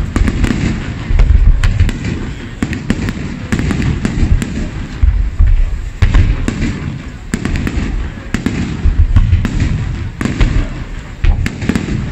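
Fireworks display: aerial shells launching and bursting one after another, with deep booms and many sharp cracks in quick, unbroken succession.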